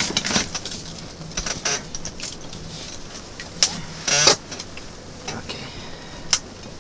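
Ice-fishing rod, line and reel being handled by hand: scattered clicks and short rattles, with a louder, quick rattling burst about four seconds in.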